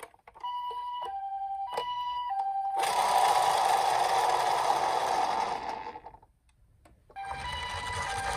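Toy ambulance's electronic two-tone 'pee-po' siren switching high-low a few times, then a loud steady rolling rattle of the minicar running down a slope for about three seconds. The rattle stops briefly and starts again near the end with a low hum under it.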